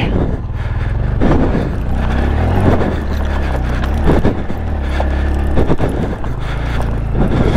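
Honda Grom's 125 cc single-cylinder engine pulling hard up a steep, rocky trail, its revs rising and falling several times as the rider works the throttle, with knocks and scrapes from loose rock under the tyres.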